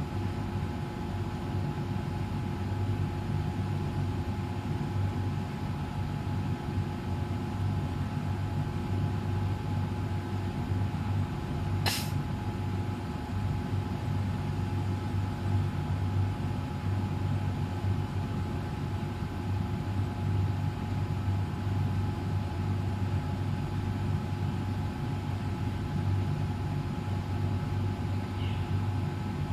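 Dumpling-making machine running with a steady mechanical hum that holds several constant tones. One sharp click cuts through about halfway in.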